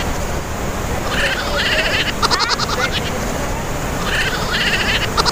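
Glacier-fed waterfall inside the mountain, a loud steady rush of water. Over it, a short call with a quick run of clicks repeats about every three seconds.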